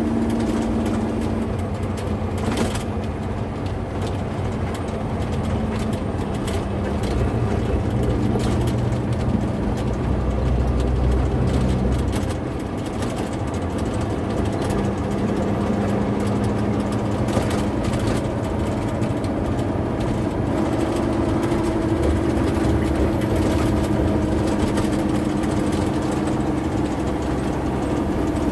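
A vehicle's engine running with road noise, heard from inside the cab while driving. The engine note drops a few seconds in and rises again about two-thirds of the way through as the speed changes.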